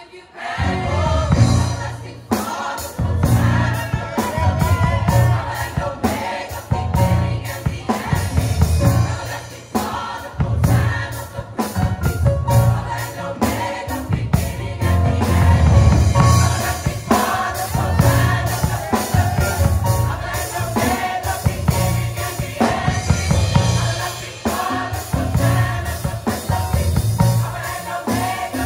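Mixed youth choir singing a Christmas carol, backed by a drum kit keeping a steady beat. The full choir and drums come in after a brief pause right at the start.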